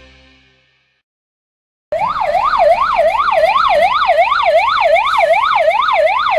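Fire engine siren on an IVECO Magirus fire truck sounding a fast yelp, its pitch sweeping up and down about two and a half times a second. It starts suddenly about two seconds in and is loud.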